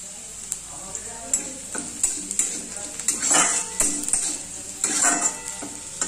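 Chopped onions sizzling in hot oil in a metal kadai, being fried until brown. A flat metal spatula stirs them, scraping against the pan in repeated strokes from about a second in, loudest around the middle and again near the end.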